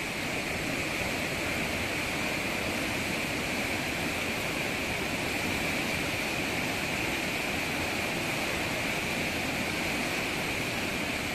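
Whitewater river rapids rushing over rocks, a steady, unchanging rush of water.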